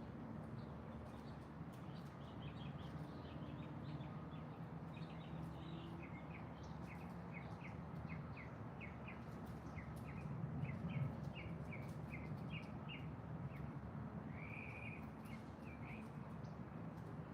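A songbird singing a run of short, quick chirps, about two a second, with a longer slurred note near the end. Under it runs a steady low background rumble.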